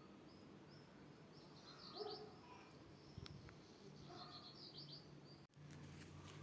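Faint birdsong: two quick clusters of short high chirps, about two and four seconds in, over a faint steady low hum. The sound cuts out for a moment near the end.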